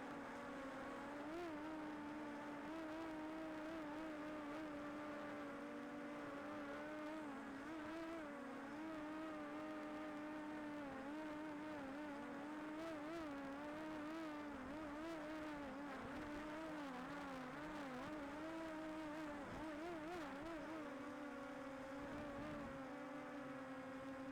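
DJI Air 2S quadcopter's propellers whining steadily, the pitch wavering up and down as the motors adjust, and holding steadier in the last few seconds.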